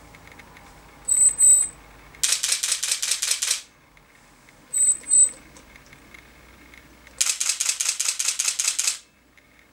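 Nikon 17-35mm zoom lens making an abnormal noise: a rapid clicking rattle, about ten clicks a second, lasting about a second and a half, heard twice. Each burst is preceded by a pair of short, high beeps.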